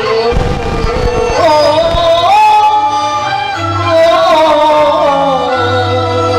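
Cantonese opera singing with its band accompaniment: one long, drawn-out melodic line that rises and then slowly falls back, over steady low bass notes.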